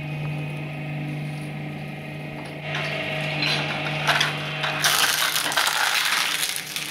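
Twin-shaft shredder running with a steady motor hum, its steel blades crunching and cracking a plastic toy jeep and trailer. The crunching starts about three seconds in and is loudest near the end.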